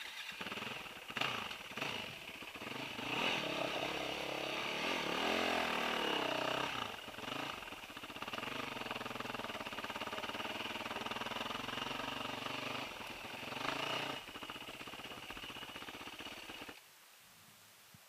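Dirt bike engine running, the revs rising and falling for a few seconds and then holding steadier, until it cuts off abruptly near the end.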